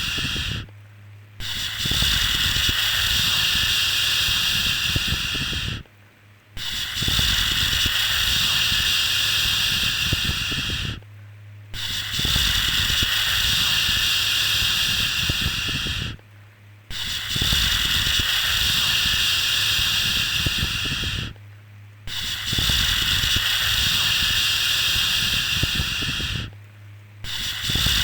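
Shushing "shhh" sound for soothing a baby. Each shush lasts about four and a half seconds, with a short pause before the next, repeating about every five seconds; a low hum runs under each shush.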